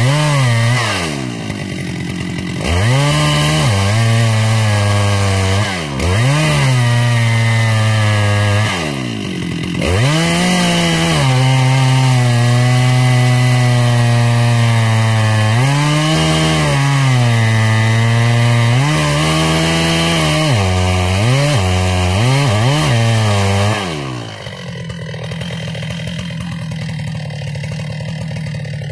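Husqvarna 395 XP two-stroke chainsaw cutting deep into a large tree trunk, its engine pitch sagging under load and rising again as the throttle is eased, several times, with a few quick throttle blips. About 24 seconds in, it drops to idle and keeps idling.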